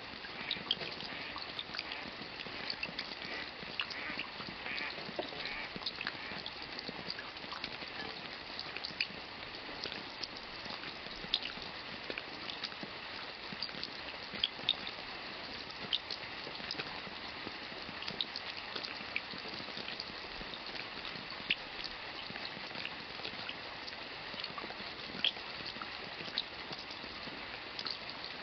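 Steady rain falling, a constant patter with many separate drops striking sharply and at random.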